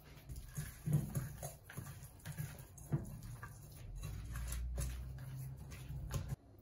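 A hand rubbing seasoning into raw pork belly in a rice cooker's inner pot: rubbing and squishing of meat with a few knocks as the pot is held and shifted on the counter. The sound stops suddenly a little before the end.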